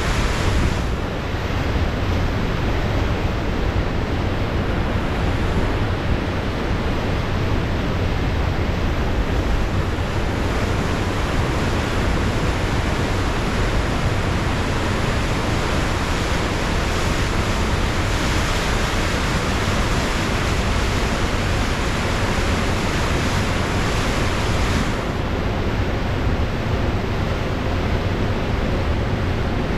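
Pacific Ocean surf washing in a steady, unbroken wash, with wind rumbling on the microphone.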